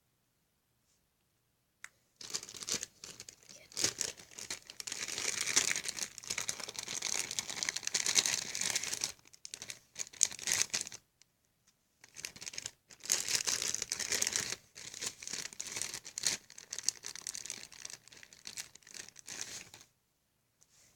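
Fluffy slime being stretched and squeezed by hand, making a dense crackling, tearing sound. It starts about two seconds in and runs in long stretches with short breaks near the middle.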